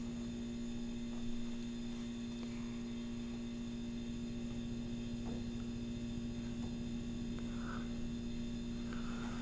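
Steady electrical hum, one low tone with fainter higher tones, over a faint hiss.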